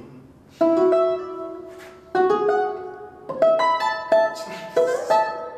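Two balalaikas playing together: about six sharp struck chords with short pauses between them, each left to ring and fade.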